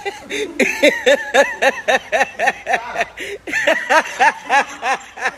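A person laughing hard in a long run of quick, rhythmic bursts, about three to four a second.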